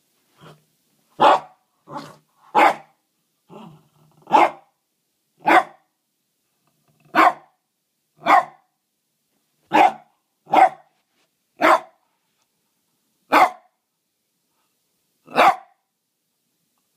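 Border Terrier barking in single, separate barks, about one a second with uneven gaps, around fourteen in all. A few of the barks are quieter and lower.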